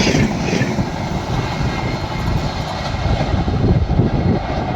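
Passenger train running past, a steady loud rumble of wheels on the track.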